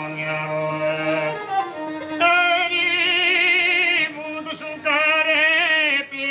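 Indian folk music: a bowed string instrument and a man's singing voice, in phrases with a wavering vibrato.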